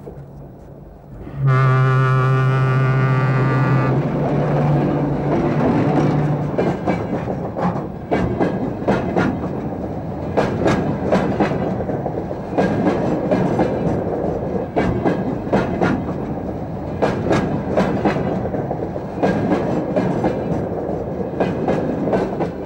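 A train horn sounds a long blast about a second and a half in, stepping up to a second, higher note partway through. Then a freight train runs past close by, rumbling steadily with the clickety-clack of wheels over the rail joints.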